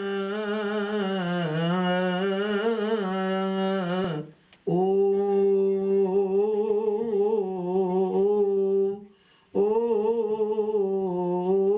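A single man's voice chanting a slow, melismatic Coptic liturgical melody, the notes held long and wavering, in three long phrases with short breaths between them, in a small, reverberant church.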